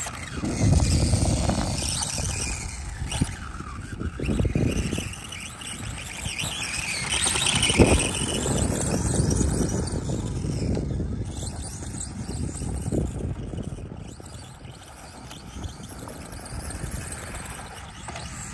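SkyRC SR5 1/4-scale RC dirt bike's electric motor whining, rising and falling in pitch as the bike speeds up and slows on the dirt track, with wind gusting on the microphone.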